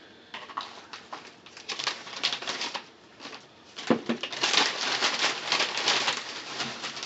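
Plastic chip bag crinkling and rustling as it is handled, on and off, with one sharp knock about four seconds in.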